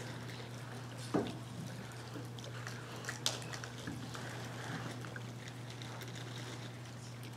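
Room tone of a quiet congregation: a steady low hum with scattered small clicks and knocks, the loudest a knock about a second in and a sharp click near the middle.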